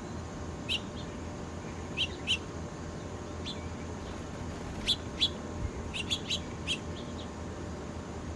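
Birds chirping: short, sharp high chirps, scattered singly and in quick pairs, coming thicker in the second half, over a steady low hum.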